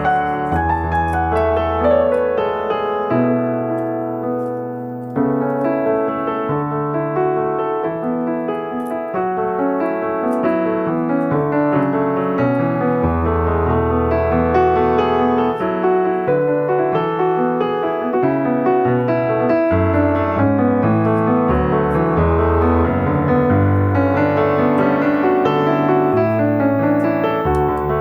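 Background piano music: a steady melody over held bass notes.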